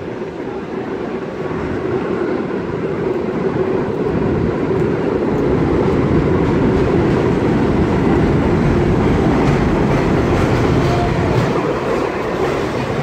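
R32 subway train pulling into an elevated station, its steady rumble growing louder over the first several seconds as it approaches, then passing close by.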